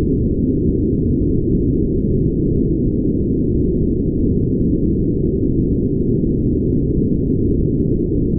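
Brown noise: a steady, deep hiss with its energy low down and no treble.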